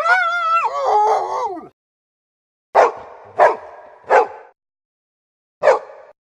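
A dog gives one long, wavering, pitched cry lasting well over a second. After a short silence it barks three times about half a second apart, then once more after a pause.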